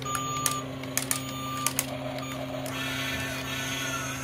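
Small electric motor of a toy remote-control excavator whirring steadily, with several sharp clicks in the first two seconds.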